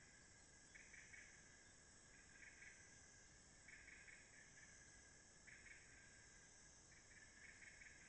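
Faint night chorus of forest insects: a steady high-pitched buzz with short pulsed trills repeating about every second and a half, cricket-like.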